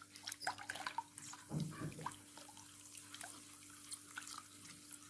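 Water being stirred with a silicone spatula in a glass bowl: a light splashing with many small clicks as the spatula touches the glass. There is a brief low murmur about one and a half seconds in.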